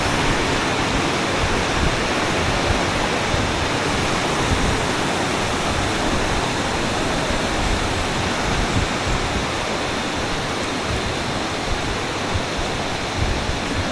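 Steady rush of water, a continuous even noise.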